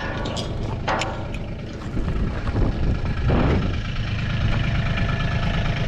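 Vehicle engine running low and steady, with scattered clicks and rattles early on and a brief rushing hiss about three seconds in.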